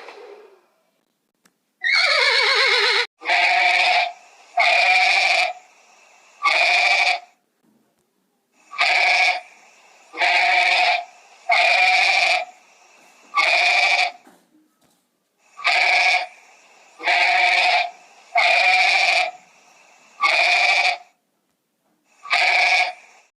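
An animal calling over and over: about a dozen loud pitched calls of about a second each, coming every second or two, the first one falling in pitch.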